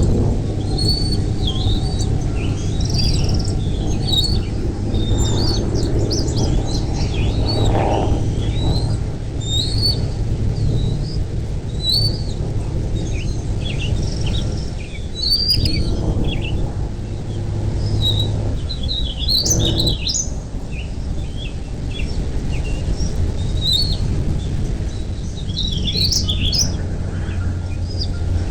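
Birds chirping: many short, high, quickly bending calls, thicker around the middle and near the end, over a steady low rumble.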